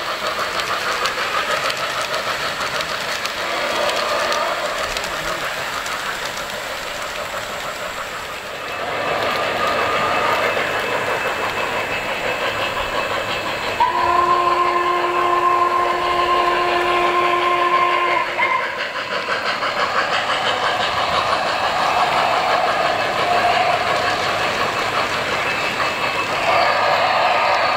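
O-gauge model steam trains rolling on garden track, their onboard sound systems playing Norfolk & Western steam-locomotive running sounds. About halfway through, one steady whistle blast of about four seconds sounds.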